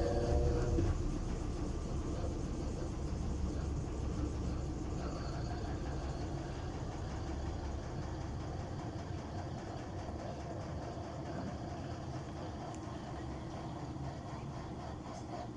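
Mabe washing machine spinning at 700 rpm: its motor whine cuts off about a second in, and the drum coasts down with a low rumble that slowly fades.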